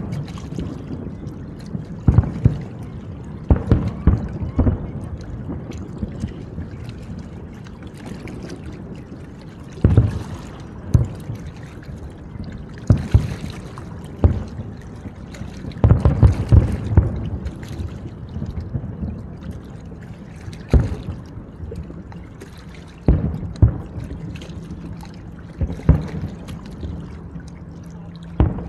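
Aerial fireworks shells bursting: a string of more than a dozen booms at uneven gaps, some followed by crackling. A faint steady low hum runs underneath.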